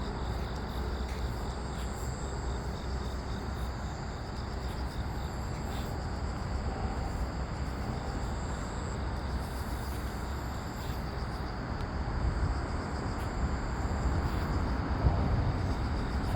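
Outdoor ambience: a steady low rumble of distant traffic, with insects chirping in thin, high, steady tones above it.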